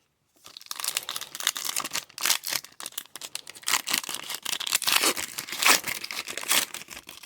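Plastic trading-card pack wrapper crinkling and being torn open by hand, a dense run of crackles.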